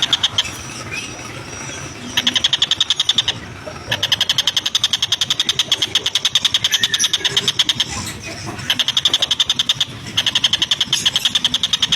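Oriental dollarbird (tengkek buto) giving its harsh chattering call: several runs of quick, evenly repeated notes. Each run lasts about one to four seconds, with short breaks between them.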